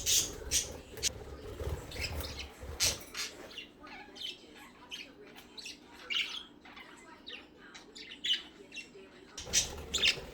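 Pet budgerigars chattering: many short, high chirps and squawks scattered throughout, louder at the start and again near the end.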